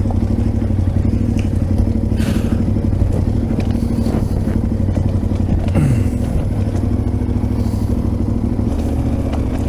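Large twin-cylinder adventure motorcycle engine running steadily at low speed, with some clattering from the bike; the engine note drops briefly about six seconds in.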